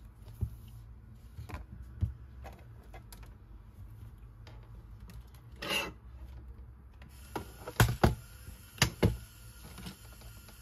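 Small objects being handled: scattered light knocks and clicks, a short rustle about six seconds in, and a cluster of sharper clacks near the end.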